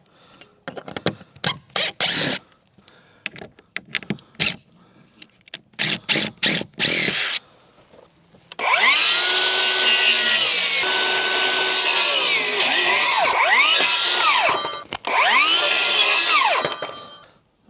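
Short knocks and scrapes on wood, then about eight seconds in an electric power saw starts cutting into the old boards; its whine repeatedly sags in pitch under load and rises again, with a brief pause before a final cut.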